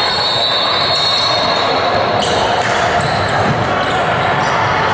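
Basketball game in a gym: the ball bouncing and short high squeaks, like sneakers on the court, over a steady loud din of the hall.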